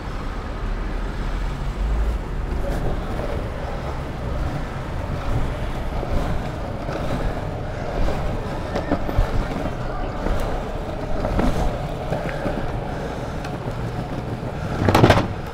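Longboard wheels rolling over pavement: a steady rumble with scattered small clicks, and a brief louder clatter near the end.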